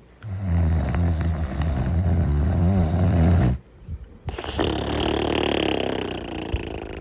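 Cartoon character snoring: a long, low rattling snore of about three seconds, a short pause, then a long breathy exhale that fades away.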